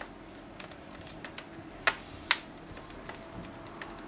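Small screwdriver working a screw in the lower corner of a laptop screen bezel: light scattered clicks, with two sharper clicks a moment apart about two seconds in. A faint steady hum runs underneath.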